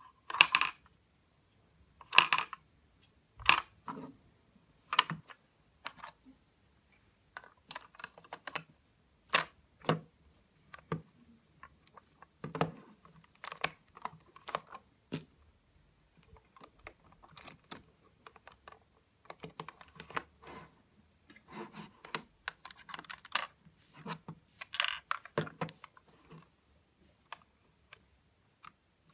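LEGO puzzle box being handled: irregular plastic clicks and clacks as its brick panels are pushed, slid and snapped, some in quick clusters, with short pauses between.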